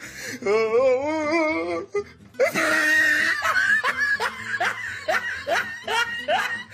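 Person laughing: a wavering, wobbling laugh, then a run of short laughs, over background music.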